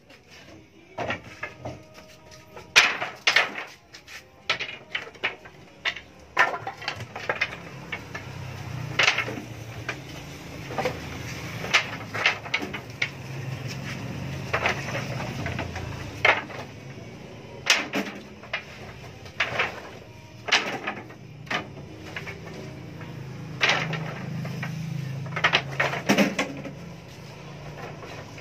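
Wooden boards and offcuts clattering and knocking as they are picked up and tossed onto a pile, in irregular sharp knocks. A low steady hum joins in about a third of the way through.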